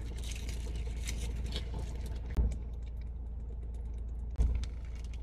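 Close-up eating sounds: a foil wrapper crinkling and small crackles of chewing, over a steady low car-cabin hum. Two louder handling noises stand out, about two and a half seconds in and again near the end as a plastic water bottle is lifted for a drink.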